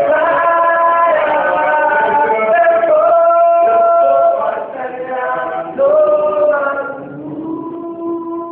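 A group of mostly male voices singing unaccompanied, several voices holding long notes together and moving to new notes every second or two. The singing is a little softer after about four seconds.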